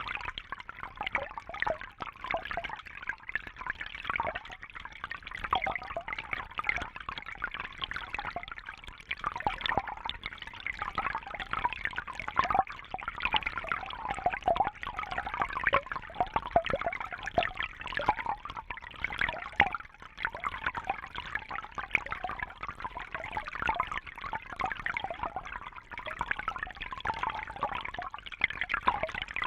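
Babbling brook: shallow water flowing and gurgling over stones, a continuous uneven bubbling.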